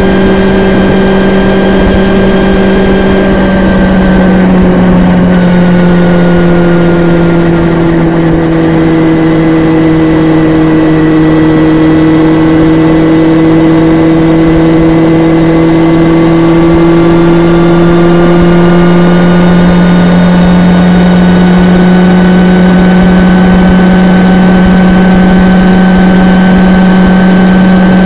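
Honda CBR929RR's inline-four engine running at a fairly steady speed, heard loud and close through a microphone in the bike's tail compartment. Its pitch dips slightly a few seconds in, then slowly climbs back.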